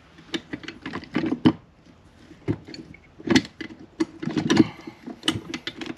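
Steel gear shafts and shift forks of a Honda Prelude manual transmission clinking and knocking against each other and the aluminium case as the gear cluster is lined up and lowered into place. The knocks are irregular, with a few louder ones.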